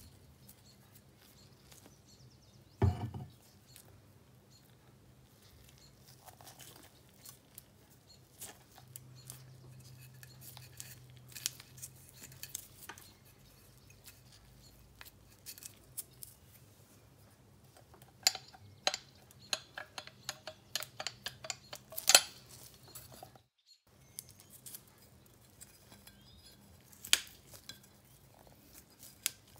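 Cast parts of a mechanical coin bank clicking and tapping as gloved hands handle and fit them together, with a heavier knock about three seconds in and a quick run of clicks about two-thirds of the way through.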